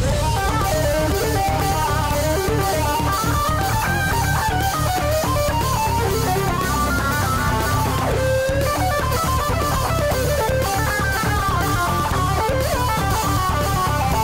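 Background music: a guitar melody over a steady drum beat.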